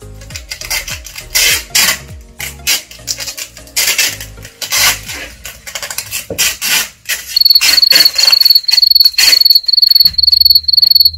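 Clear sticky tape pulled off the roll and torn in short rasps while plastic bottles are handled and wrapped. From about seven seconds in, a loud, high, even chirping repeats about three times a second and cuts off suddenly near the end.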